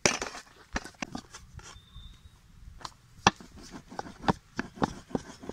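Wooden rolling pin rolling out a ball of dough on a metal tray, with irregular clicks and knocks as the pin taps and rubs against the tray.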